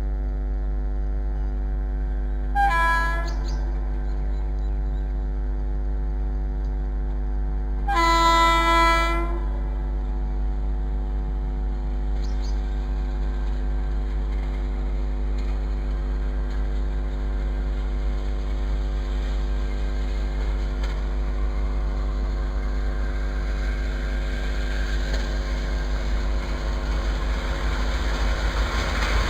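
WAP4 electric locomotive's horn sounding two blasts: a short one about three seconds in and a longer, louder one at about eight seconds. Over a steady hum, the rumble of the approaching train grows louder in the last few seconds.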